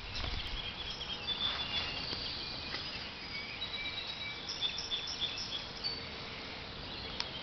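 Outdoor ambience: a steady hiss with many short, high chirps of small birds at several pitches, and a brief low rumble of handling noise at the very start.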